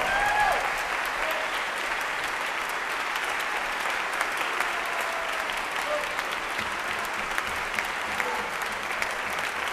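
Audience and orchestra members applauding steadily, with a few voices calling out near the start.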